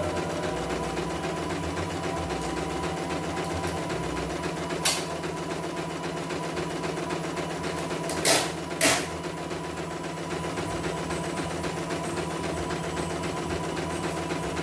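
CNY E900 computerized embroidery machine running steadily, stitching a design in its hoop. One sharp click comes about five seconds in and two more come close together around eight seconds in.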